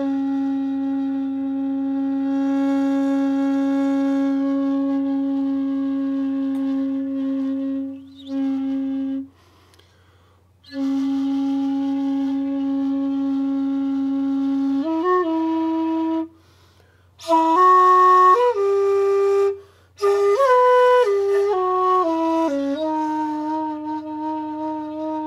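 Shakuhachi, the Japanese end-blown bamboo flute, played in its low otsu register: a long held note of about eight seconds and a short one, then after a pause for breath another long note, followed by a phrase of shorter notes stepping up and down in pitch.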